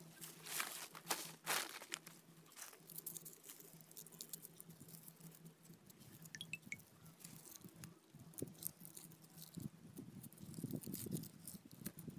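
Dry garlic and onion skins crackling and tearing as they are peeled by hand with a small knife: a run of small crisp crackles, thickest in the first few seconds, then scattered.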